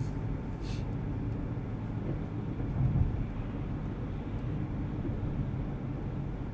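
Steady low rumble of a running car heard from inside the cabin.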